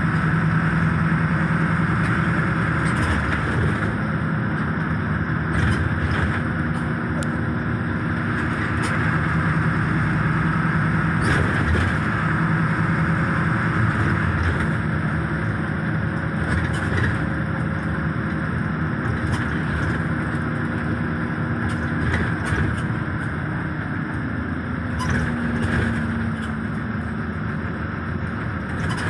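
Steady drone of a moving bus heard from inside the cabin: engine hum and road noise, with scattered short clicks and rattles.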